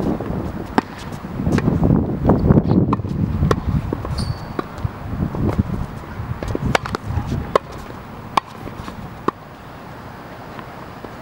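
Tennis ball being struck by a racket and bouncing on a hard court: sharp pops about once a second, over a low rumble that fades about seven seconds in.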